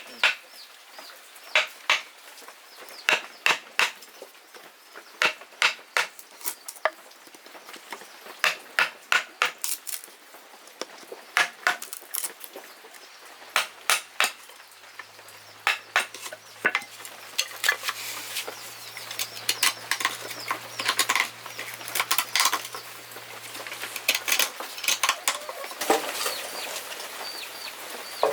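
A string of sharp, irregular clicks and knocks, like hard objects being handled and struck together. A faint low hum comes in about halfway through.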